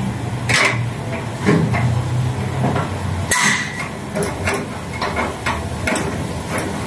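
Metal clicks and knocks of a speed-brace socket wrench working the 14 mm bolts of a car's underbody cover, a handful of separate strikes with the sharpest about halfway through. A steady low hum runs underneath and stops at about the same point.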